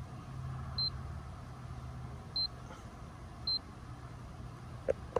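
ACR EPIRB running its self-test, giving short high-pitched beeps about a second or so apart, three in all, over a steady low hum. The test sequence is the check that the beacon is working. Two light clicks come near the end.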